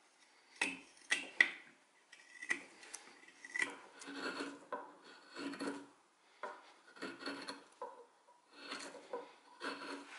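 Spoon knife (a hook-bladed steel wood-carving knife) cutting into wood: a run of short scraping strokes, about one a second, some in quick pairs, each shaving off a chip or curl.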